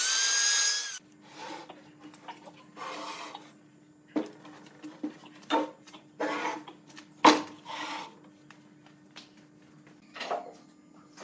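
An angle grinder with a sanding pad runs on wood for about a second, then cuts off. After it come scattered knocks and rubs of wooden parts being handled, the loudest a sharp knock about seven seconds in, over a faint steady hum.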